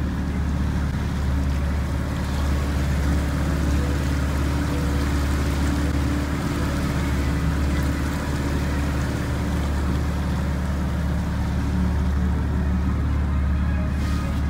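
Outboard motor running steadily as it pushes a trimaran along, a constant low hum over a steady hiss of wind and water.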